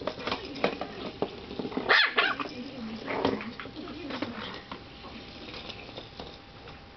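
Maltese puppy giving a few short barks while playing, the loudest about two seconds in, among light taps and knocks on a tile floor; the sounds thin out in the second half.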